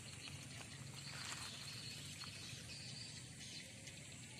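Faint outdoor background noise by a fishing pond: a steady low hiss and hum with a few soft, scattered clicks.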